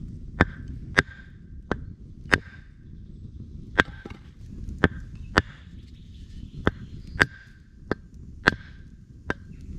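Axe chopping wood: about a dozen sharp, uneven blows, roughly one a second, several with a short ring after the strike.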